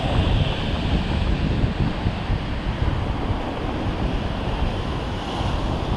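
Ocean surf breaking and washing across a flat coastal rock shelf, a steady rush of foaming water, a little stronger in the first second, with wind noise on the microphone.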